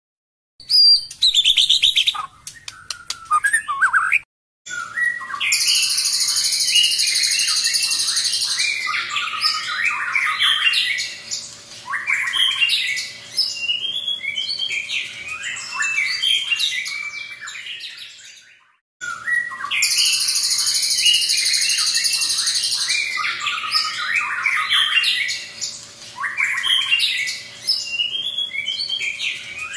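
White-rumped shama (murai batu) singing long, varied phrases. Each phrase opens with a few seconds of dense, high, buzzy trilling, then runs into a string of rich whistles and chirps. The song stops briefly about two-thirds through and the same passage begins again; the first few seconds before the song hold a short run of sharp clicks and high notes.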